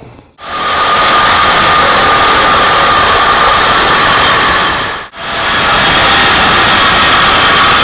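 Reciprocating saw cutting through a metal exhaust pipe, running steadily at full speed with a faint steady whine. It stops briefly about five seconds in and starts again.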